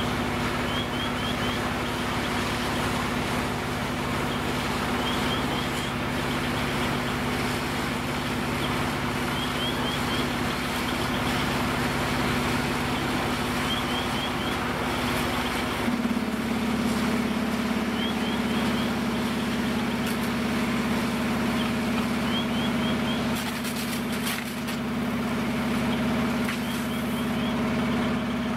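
Fire apparatus diesel engine running steadily, a constant hum with a fixed tone that shifts slightly about sixteen seconds in. A faint, short, high triple chirp repeats about every four seconds over it.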